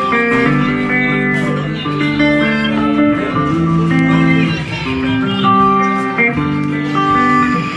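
Guitar playing a melody of held single notes, with electric guitar tone.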